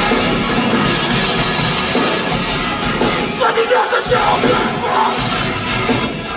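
Metalcore band playing live, loud and dense, with vocals coming in about three seconds in.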